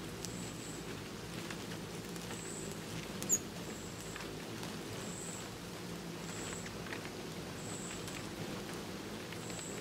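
Hummingbirds hovering at a feeder, their wings making a steady low hum, while a short, high, thin chirp repeats about every second and a quarter. One sharp click comes about three seconds in.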